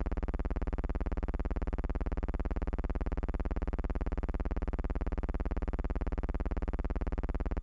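Steady buzzing hum with a fast, even flutter, unchanged throughout; no sound of the horses or the crowd comes through.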